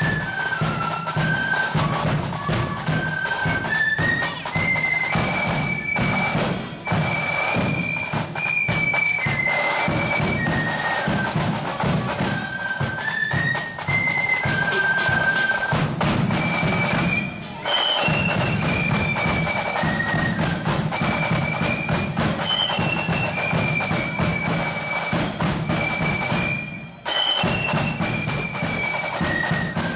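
Marching flute band playing a shrill, stepping tune in unison, with drums beating a steady march time underneath. The tune breaks off briefly twice, about halfway through and near the end.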